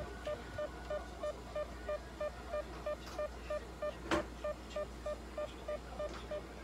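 Electrocardiograph beeping once per heartbeat of a cat: a short, steady tone repeating evenly about three times a second, the fast rhythm of a cat's heart. A single sharp knock about four seconds in.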